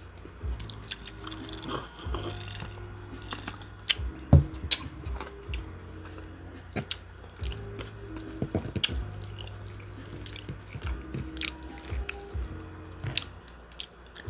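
Close-up chewing and biting of chicken wings, with many sharp irregular clicks and smacks, over background music.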